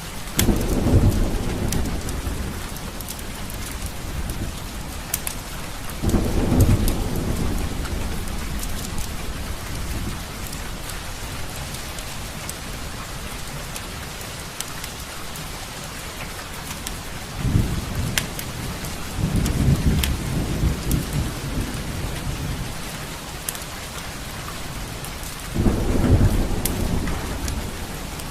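Steady rain with thunder rumbling five times, each roll lasting a few seconds. Scattered sharp crackles run through it.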